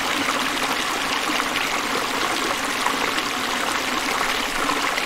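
Running water, a steady rushing noise with no breaks.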